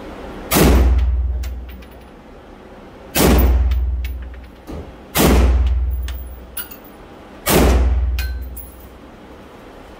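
AR-15-style rifle fired in four slow single shots about two to two and a half seconds apart, each echoing for about a second in an enclosed indoor range. Light metallic clinks come between the shots.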